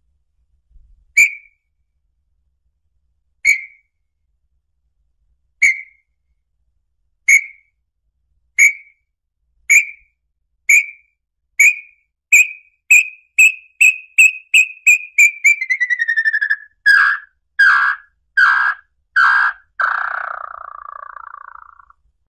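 Small-billed tinamou (lambu-pé-vermelho) song: clear whistled notes, at first about two seconds apart, speeding up steadily into a quick run that slides lower in pitch. It ends with a few louder, slower notes and a short quavering trill that falls away.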